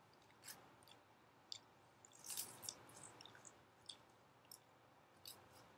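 Faint, scattered small clicks and mouth sounds of someone eating: a fork touching a plate and chewing, a little busier about two seconds in.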